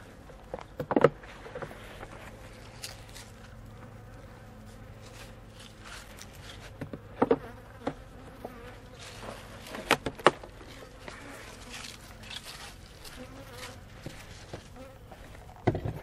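Honey bees buzzing in a steady hum around an opened hive. Several sharp wooden knocks, the clearest about a second in, around seven and ten seconds, and near the end, as frames and hive boxes are handled.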